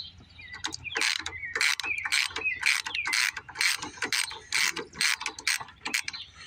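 Socket ratchet wrench clicking in quick repeated strokes as its handle is swung back and forth on the flywheel of a small Briggs & Stratton engine.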